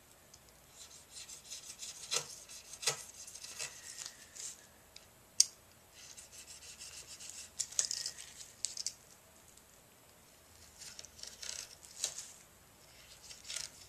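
Knife blade cutting the overhanging fiberglass cloth off the edge of a rudder, in irregular scratchy strokes with a single sharp click about five seconds in. The epoxy is only partly cured and still tacky, the early stage at which the excess cloth is trimmed.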